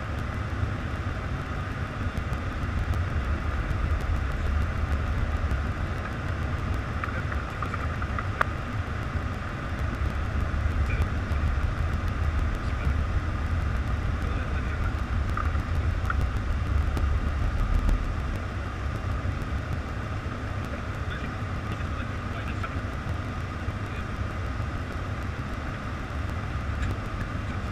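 Steady in-flight cockpit noise of a Boeing 747: a low rumble with a hiss of airflow over it, easing slightly about two-thirds of the way through.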